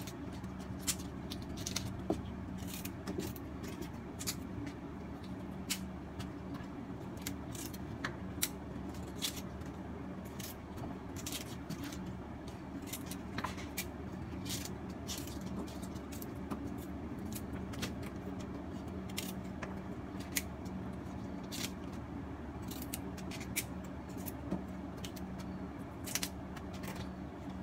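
Irregular crisp snaps and clicks of a knife cutting and trimming Chinese kale stalks by hand, over a steady low hum.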